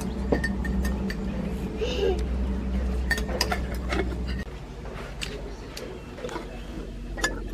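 Metal spoons clinking and scraping against small ceramic soup bowls in scattered light clicks. A steady low hum runs under the first half and cuts off suddenly a little past halfway.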